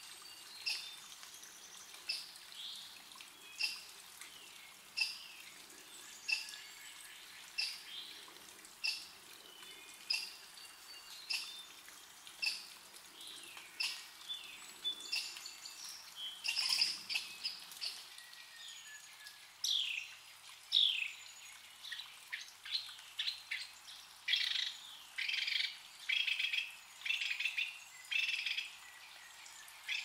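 Songbirds singing: short high notes repeated a little under once a second, becoming quicker and more crowded, with downward-sweeping notes, in the second half.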